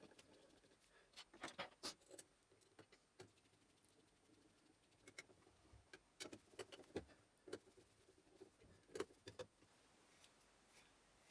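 Faint, scattered clicks and light taps of small parts being handled and fitted while a vacuum cleaner motor is put back together, amid near silence.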